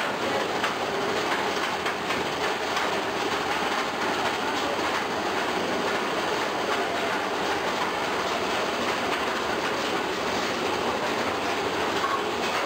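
Roller coaster train clattering steadily along its track, a continuous rattle of wheels on rails.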